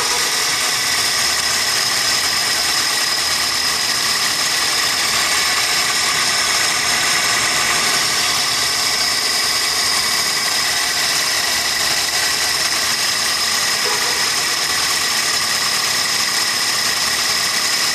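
1999 Toyota Corolla's four-cylinder engine idling steadily after a cold morning start. The owner says this engine misfires when cold, until it warms up.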